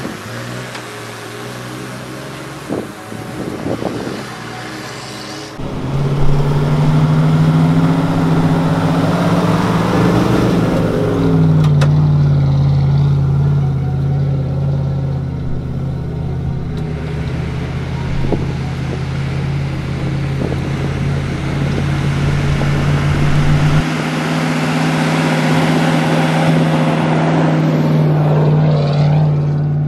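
A vehicle engine running steadily under load while driving off-road, swelling and rising in pitch then falling back about a third of the way in. The drone changes abruptly a couple of times.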